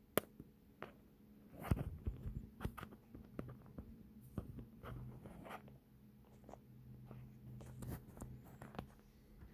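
Faint rustling and scratching with scattered small clicks and taps. There is a sharp click just after the start and a louder cluster of scrapes a little under two seconds in, over a faint low hum.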